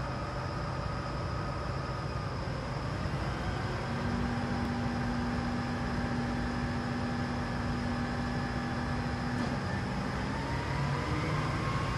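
Cummins QSL9 inline-six diesel of a Hyster reach stacker running as the machine drives slowly forward, a steady low rumble with whines held over it. About ten seconds in, one whine drops away and another rises in pitch.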